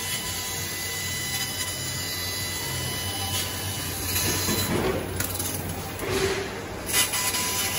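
CNC laser cutter cutting 6 mm steel plate: a steady hiss and crackle from the cut over a low machine hum. The hiss swells louder a couple of times, with a sharp pop about seven seconds in.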